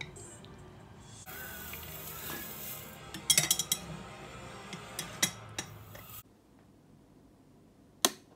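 A metal spoon and chopsticks clink and scrape against a ceramic bowl, with a quick cluster of clinks about three seconds in and a few single ones after. Then it goes quiet, and near the end a wall light switch gives one sharp click.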